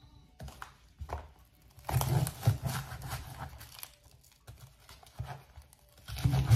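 Cleaver knocking on a plastic cutting board while spring onions are cut: a few single knocks, then a quick run of chops about two seconds in, and another cluster near the end.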